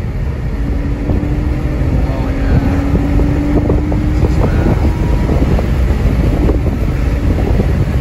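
Heard from inside the cabin: a 2008 Honda Accord V6 coupe driving at speed, with heavy road and wind rumble. Its engine note rises slowly through the first half as the car pulls.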